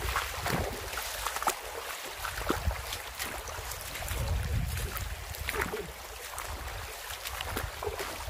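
Wind buffeting the microphone with a low rumble, over the hiss of shallow running water, with scattered clicks and small splashes of feet wading over stones.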